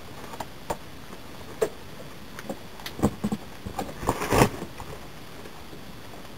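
Stiff birch bark clicking and crackling as a red-handled awl is pressed through the sheet and the bark is shifted on a wooden plank. The clicks are scattered at first, grow more frequent, and peak in a louder burst of crackling about four seconds in.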